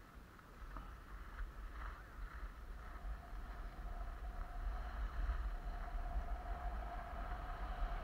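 Skis sliding and scraping over snow on a downhill run, with wind rumbling on the microphone; the noise grows louder as speed builds, and a steady thin tone joins about three seconds in.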